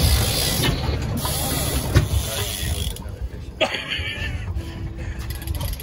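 Fishing reel ratcheting and clicking as an angler fights a hooked chinook salmon on a heavily bent rod, over a steady low rumble.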